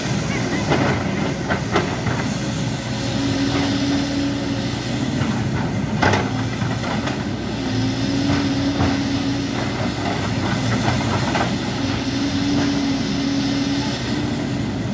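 JCB tracked excavator's diesel engine running steadily, with a higher hum coming in three times for a couple of seconds as the hydraulics work under load. Scattered clanks and knocks from the bucket and tracks, the sharpest about six seconds in.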